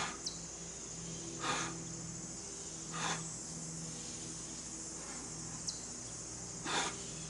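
A man breathing out hard with each push-up, four sharp breaths about a second and a half apart with a longer gap in the middle. Under them runs a steady high insect drone of crickets.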